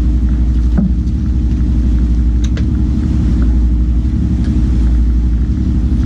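Fishing boat's engine running steadily with a low, even rumble, with a few faint clicks over it.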